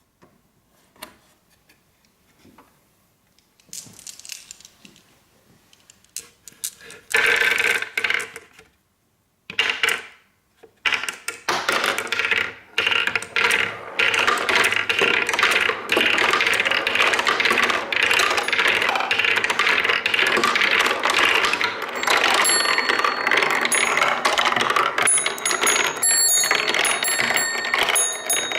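Marbles rolling and clattering down a wooden marble run: scattered clicks and short clatters at first, then from about ten seconds in a dense, continuous rattle of many marbles at once, with short high ringing pings added in the last several seconds.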